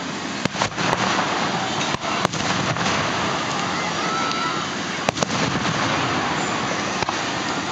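Aerial fireworks shells bursting: several sharp bangs, with two in quick succession about five seconds in.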